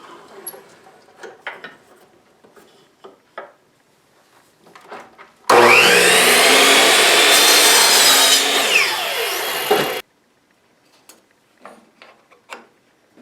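Light handling knocks and clicks, then a power saw cutting wood for about four and a half seconds, its motor whine rising as it starts and falling near the end before the sound cuts off suddenly.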